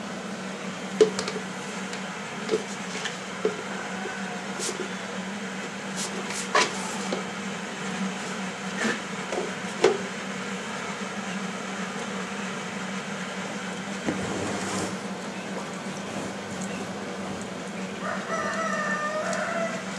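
Scattered small metallic clicks and knocks as hands work the fuel sediment bowl and valve on an International Harvester 300 Utility tractor, over a steady low hum. A rooster crows once near the end.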